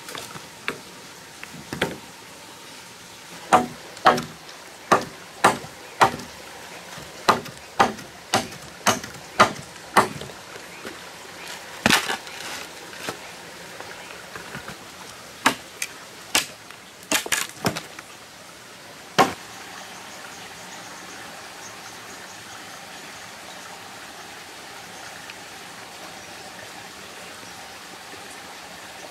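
Machete chopping and trimming a wooden pole, a string of sharp chops at about two a second that stops about two-thirds of the way through. Steady running water from the stream continues underneath and is all that is left near the end.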